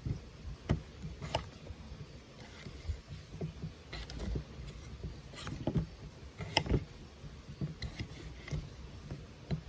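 Irregular clicks and soft knocks, a few every second, with no steady tone.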